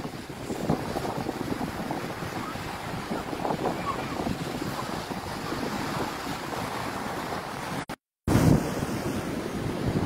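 Wind buffeting the phone's microphone on an open beach, with surf behind it, as a rough, irregular rumble. The sound cuts out completely for a moment about eight seconds in.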